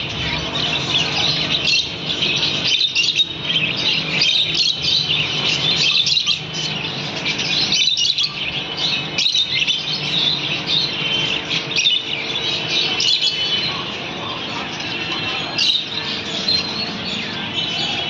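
A roomful of caged pet birds, budgerigars among them, chattering and chirping together without a break, many high-pitched calls overlapping. A faint steady hum runs underneath.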